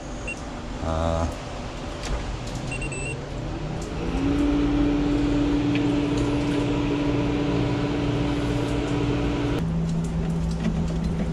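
Vending machine's refrigeration unit running with power restored: a steady mechanical hum with fan noise that comes up about four seconds in and drops to a lower, steady hum near the end.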